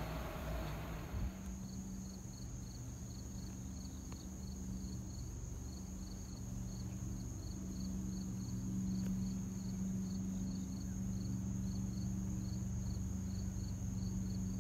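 Crickets chirping steadily, about two to three chirps a second, with a continuous high insect trill above them and a low steady hum beneath. At the very start the noise of a commuter train pulling into the station is heard briefly before it cuts off.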